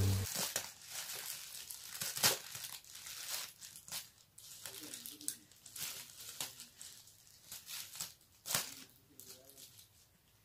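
Thin black plastic bag crinkling and rustling while it is cut open with scissors, in irregular crackles and sharp snips.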